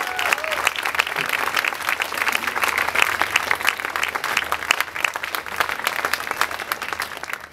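Audience applauding after a song, a dense patter of hand claps that fades out at the very end.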